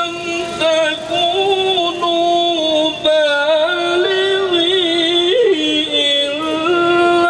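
A male reciter chanting Quranic verses in melodic tajwid style. He holds long notes and breaks into quick wavering ornamented runs in the middle.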